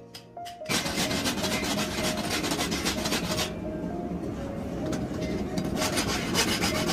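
Farrier's rasp filing the edge of a steel horseshoe clamped in a vise, in fast back-and-forth scraping strokes. It starts about a second in, eases off for a couple of seconds midway, then picks up again near the end.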